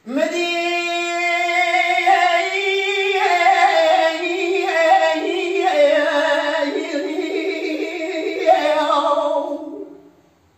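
A man singing dengbêj, the unaccompanied Kurdish sung storytelling: one long, high phrase that sweeps up at the start, then wavers through ornamented turns in pitch and fades out near the end.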